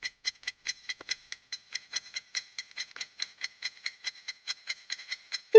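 Countdown timer sound effect: short, even, clock-like ticks, about five a second.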